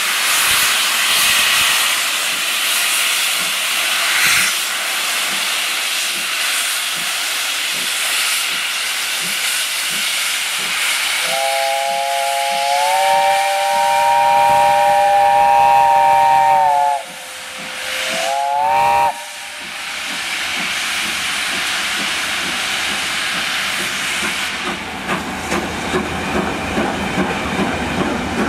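Steam locomotive 70000 Britannia pulling away, with loud, steady hissing of steam from its open cylinder drain cocks. About halfway through, its whistle sounds a chord of several notes for about five seconds, stepping slightly up in pitch before cutting off, followed by a short second blast. Near the end, the coaches' wheels click regularly over the rail joints as they roll past.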